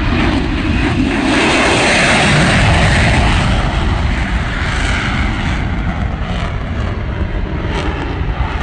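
Military jets flying past overhead: a loud, steady engine rush that swells to its loudest about two to three seconds in, then eases slightly.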